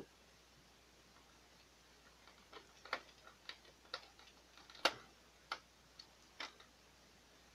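Scattered small clicks and taps of a screwdriver and a screw against the plastic frame of a Canon Pixma MG3510 printer, about a dozen from about two and a half seconds in, the sharpest about five seconds in.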